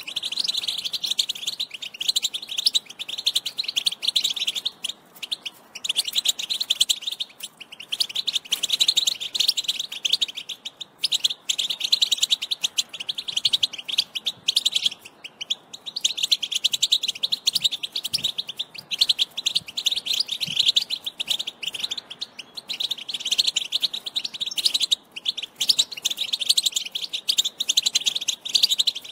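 European goldfinch singing: long runs of fast, high twittering, broken every few seconds by brief pauses.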